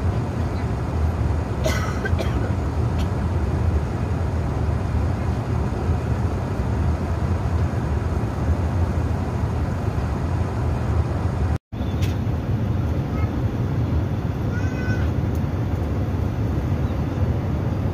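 Steady airliner cabin noise at cruise: a deep, even rumble of engines and rushing air. It cuts out for an instant about two-thirds of the way through, and a few faint, short high-pitched calls sound near the end.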